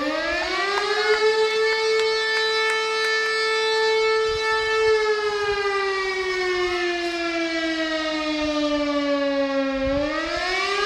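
Railway (PKP) siren wailing: its pitch rises over about the first second, holds, sinks slowly for several seconds, then rises again near the end. It is a commemorative siren signal for 'Godzina W', the Warsaw Uprising anniversary.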